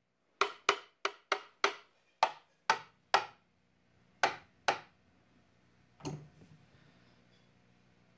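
About a dozen sharp taps, a few a second for the first five seconds and one more about six seconds in, each ringing briefly, as of a tool knocking on the clock radio's cabinet. A faint steady hum from the switched-on tube radio runs underneath.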